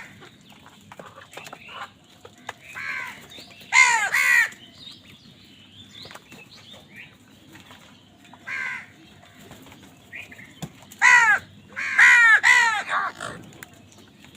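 Crows cawing: scattered harsh caws, with a quick double caw about four seconds in and a louder run of several caws near the end.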